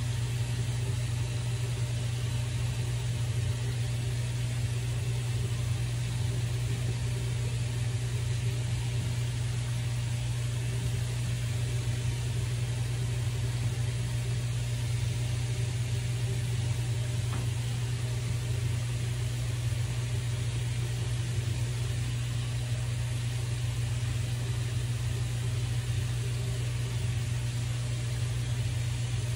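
Steady low motor hum with a constant airy hiss, unchanging throughout.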